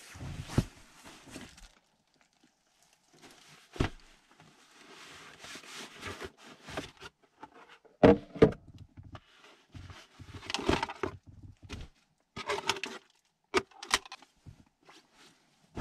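Cardboard box and its packaging being handled and unpacked: irregular rustling and scraping with sharp knocks, the loudest two about eight seconds in.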